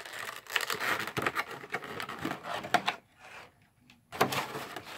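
Product packaging being handled, crinkling and rustling with sharp crackles. It goes in two spells: about three seconds, a short pause, then again briefly near the end.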